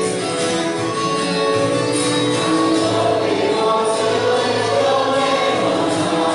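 A worship song sung by a group of voices with instrumental accompaniment, moving through long held notes.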